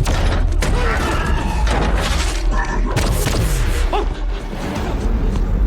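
Action-film battle soundtrack: music score mixed with repeated booms and thuds of explosions and impacts over a constant deep rumble.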